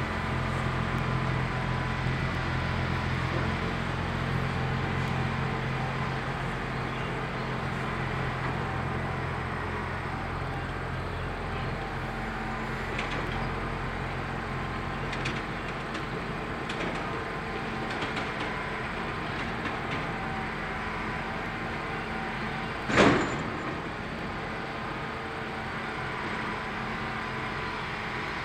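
Diesel trucks running in a freight yard: a steady low engine hum that fades away after about ten seconds, over a constant background rumble. About three quarters of the way through comes a single sudden, sharp, loud noise, the loudest thing here.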